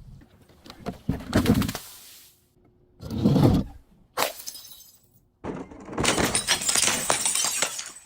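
Glass being broken and crushed: a crash about a second in, another about three seconds in, a short sharp snap just after four seconds, then over two seconds of dense crunching and crackling near the end.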